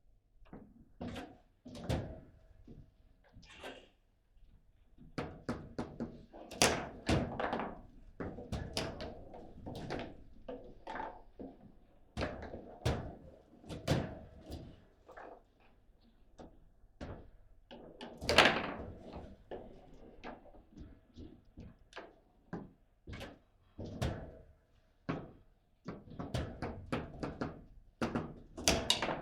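Table football play: the hard ball striking the plastic men and the table walls, and the rods knocking, in rapid irregular knocks and clacks that come in clusters, with one sharp loud hit about two thirds of the way through.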